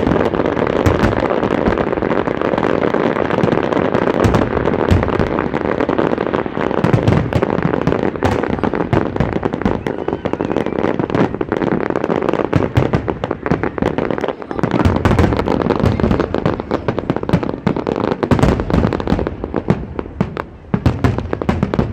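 Fireworks display: rapid, near-continuous bangs and crackling from many shells bursting close together, thinning a little near the end.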